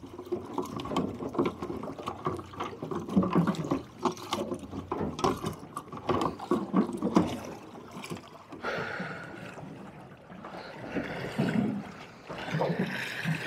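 Water slapping and splashing against the hull of a small fishing boat on a choppy sea, in an irregular run of splashes.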